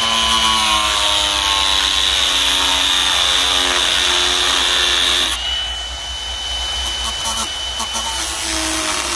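Angle grinder with a grinding disc working the steel frame, its motor pitch sagging under the load. About five seconds in the disc comes off the work and the grinder runs free with a steady high whine, which stops about eight seconds in.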